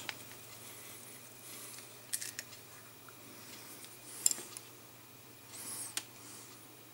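Small plastic clicks and taps as the hinged flip-top lid of a Citadel paint pot is opened, then a brief squeaky scrape of a brush in the pot near the end, over a low steady hum.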